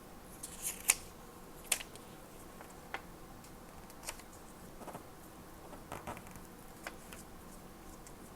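Small items being handled on a desk: scattered sharp clicks and taps with faint rustling, the two loudest clicks about a second and just under two seconds in.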